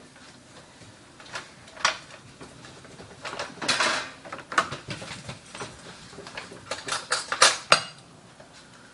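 Kitchen handling noises: scattered clicks and knocks of a dish and utensils, with a short rustle about four seconds in and a quick run of louder clacks near the end.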